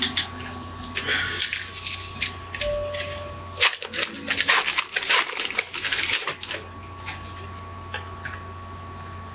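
Hockey card packs being opened and a stack of cards handled and flipped through: irregular rustling and crisp clicks of wrapper and card stock, busiest a few seconds in. A steady hum runs underneath.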